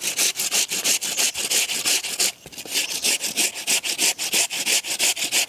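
A whole cucumber being grated by hand on a round stainless-steel grater: quick, even rasping strokes, about five a second, with a brief pause a little over two seconds in.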